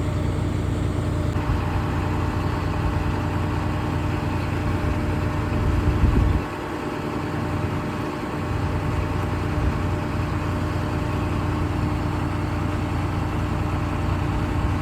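Combine harvester's engine running steadily with a constant hum. About six seconds in, a low rumble swells and then drops away for a couple of seconds.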